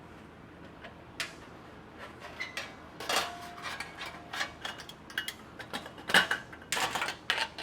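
Light metal clinks and clicks of a car trunk latch and handle parts being handled and pushed through their hole in a trunk lid panel, scattered at first and busier near the end.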